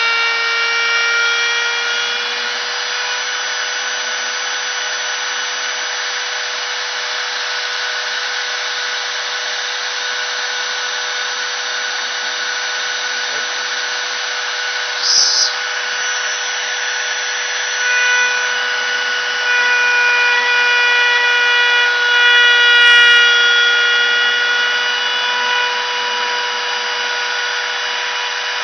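CNC router spindle running steadily as its bit cuts out a sign, with a constant whine over cutting noise. About halfway there is a brief sharp noise, and in the second half higher tones come and go as the cut changes.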